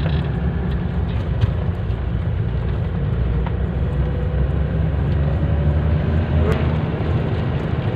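Steady road noise inside a moving car: engine and tyres on a wet road in rain.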